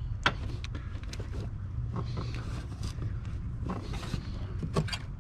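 Scattered small clicks and taps of a bolt and washer being worked by hand into a bike rack's bracket, over a steady low hum.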